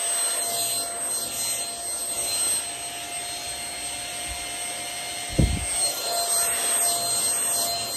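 A KEROMEE handheld dust mite vacuum running with a steady whine. A single low thump comes about five and a half seconds in.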